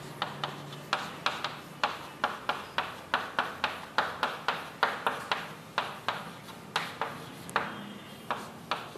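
Quick, irregular light taps and clicks, about three or four a second, from writing strokes on a writing surface.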